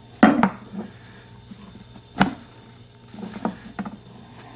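Knocks and clinks of a brass faucet valve's parts and a wrench being handled: a loud knock about a quarter second in, another about two seconds in, then several lighter clicks near the end.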